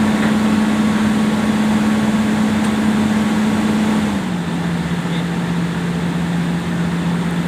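Hitachi EX200 excavator's diesel engine running steadily under load, its pitch dropping to a lower speed about four seconds in as the throttle eases off.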